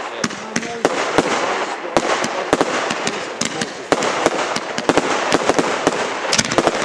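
Fireworks going off in quick succession: a dense, irregular run of sharp bangs and pops over a steady hiss, with heavier bangs about two seconds in and again near four seconds.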